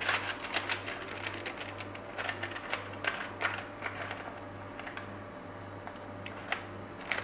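Sponge-cake batter being spread across parchment paper in a metal baking tray with a spatula: irregular light taps and scrapes of the utensil on the paper and tray, frequent in the first few seconds, then sparser. A steady low hum runs underneath.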